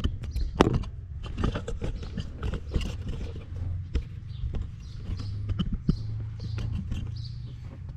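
Irregular clicks, knocks and scrapes of a hand socket tool and plastic dashboard parts being worked as screws holding the air-intake flap motor are undone, over a low steady hum.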